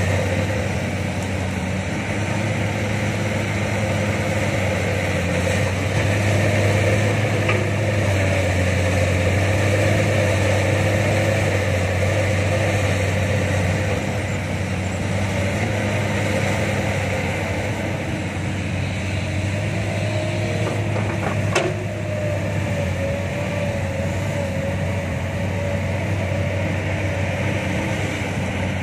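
Diesel engines of a hydraulic excavator and an idling dump truck running steadily with a low drone while the excavator loads soil into the truck. A single sharp knock about 21 seconds in.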